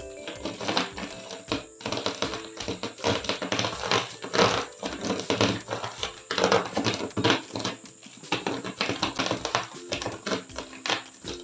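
Rapid, irregular clicking and tapping over background music with held notes.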